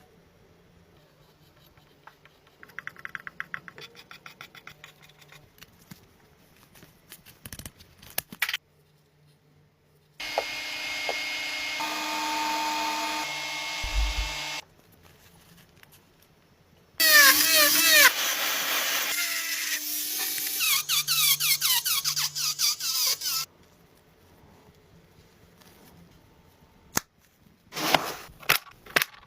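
Power tool work: a power tool runs in two long loud stretches, the second with squealing pitch sweeps, separated by shorter runs of ticks and a few sharp clicks near the end.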